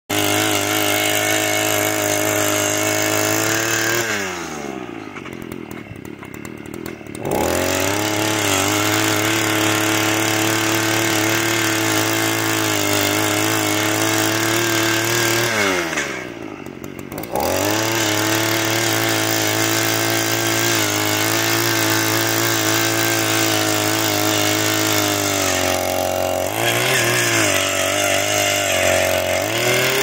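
Harbor Freight gas-powered posthole auger's engine running at full throttle while boring into the ground. It drops to idle with a falling pitch about four seconds in and again at about sixteen seconds, revving back up each time. It dips once more near the end.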